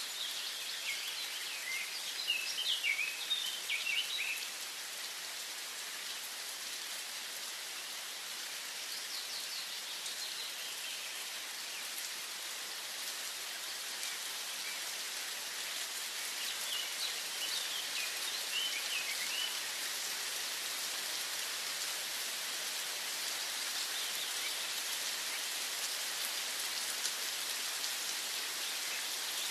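Steady hiss of falling rain, with songbirds chirping in short bursts a few times, first in the opening seconds and again near the middle and the end.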